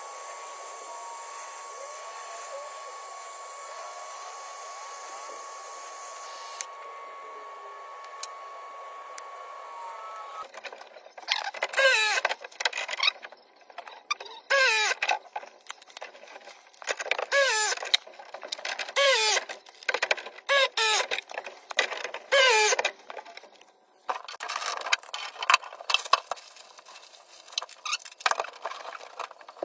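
Gas torch flame hissing steadily with a faint steady whistle while copper and brass joints are soldered. About ten seconds in it gives way to a battery press tool crimping copper fittings: about six separate one-second runs of a motor whining up and down in pitch. Irregular clatter follows near the end.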